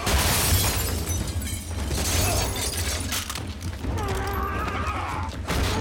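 Fight sound effects: a sudden crash with shattering glass and breaking wood, followed by a run of heavy knocks and impacts as bodies hit furniture.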